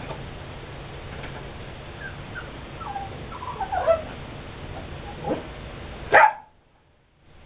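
Dog whining with short rising and falling whimpers, then one sharp bark near the end.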